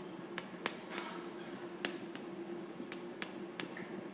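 Chalk tapping and clicking on a blackboard as formulas are written: about ten short, sharp, irregular taps over a faint steady hum.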